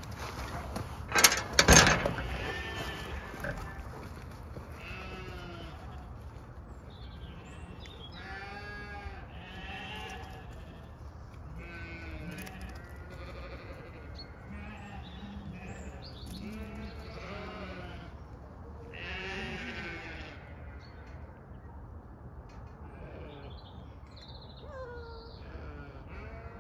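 Zwartbles sheep and lambs bleating, many separate calls one after another. About a second in come two loud clanks from the iron field gate being opened.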